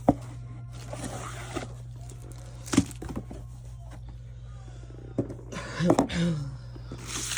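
Handling of a diamond painting kit's packaging: bursts of rustling with a few sharp knocks, the loudest about three seconds in, over a steady low hum.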